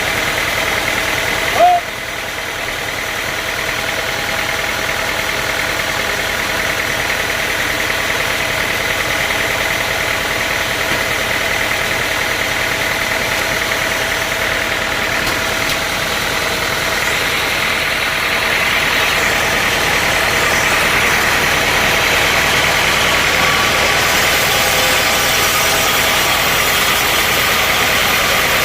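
Sawmill machinery running steadily, with a brief sharp blip about two seconds in; the sound grows louder and brighter from about halfway through.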